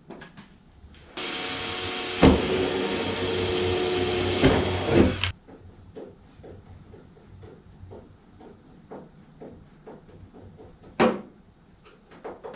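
A power drill running steadily for about four seconds, boring a mounting hole for a fender flare in the car's body, with a few louder jolts as it bites before it cuts off. Faint, evenly spaced light clicks follow, then one sharp knock near the end.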